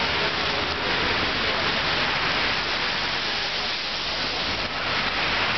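Steady rushing hiss of a city street in a snowstorm, with no single event standing out.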